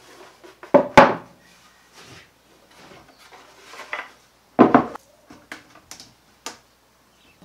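Plywood bins being handled and set down on a wooden workbench: two hard wooden knocks about a second in, another heavy knock near the middle, then a few lighter taps and clicks.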